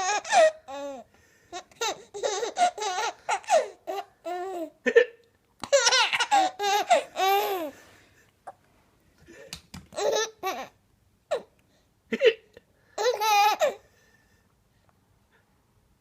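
A baby laughing in repeated bursts of high giggles and squeals, set off by a man's hiccups, which come as short sharp sounds between the laughs.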